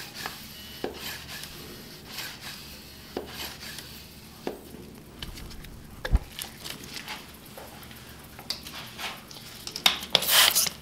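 Hand spray bottle squirting soapy water onto a two-stroke engine's countershaft seal, with scattered small clicks and knocks, one low thump about six seconds in and a quick run of hissy squirts near the end. This is the soapy-water stage of a leak-down test, hunting an air leak at the output shaft.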